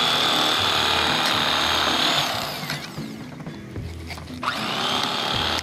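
Electric fillet knife running while fish are filleted: a steady high motor whine that winds down after about two seconds, then starts up again and runs briefly near the end.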